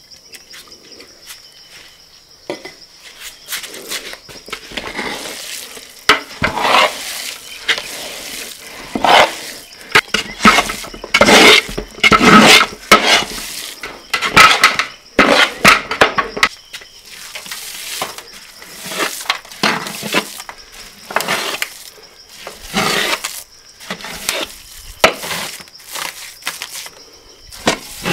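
Metal utensils scraping and knocking against steel pans and trays, in irregular strokes that are loudest in the middle of the stretch.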